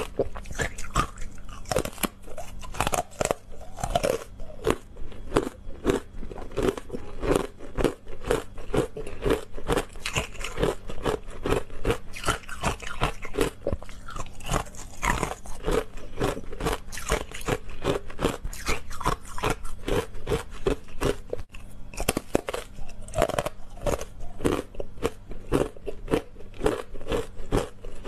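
Teeth biting and crunching through frozen matcha green-tea ice: a dense, irregular run of sharp crunches, several a second, as the pieces are chewed.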